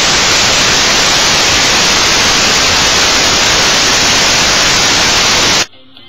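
Loud, even static hiss like white noise, starting abruptly and cutting off suddenly near the end.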